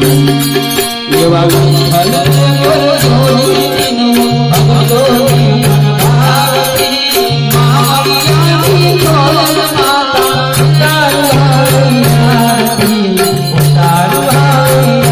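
Gujarati devotional aarti music: harmonium chords held in a repeating pattern under a wavering sung melody, with steady hand percussion and rattles.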